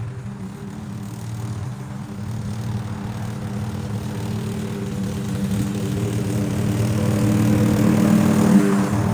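Lawn mower engine running steadily, growing louder as it comes closer and loudest near the end, then easing off slightly.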